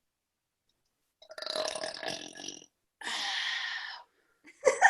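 A woman burps twice: a rough, pitched burp about a second in that lasts about a second and a half, then a second, breathier burp of about a second.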